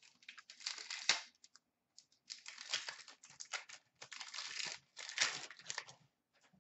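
A hockey card pack's foil wrapper being torn open and crinkled by hand, in four crackly bursts of about a second each.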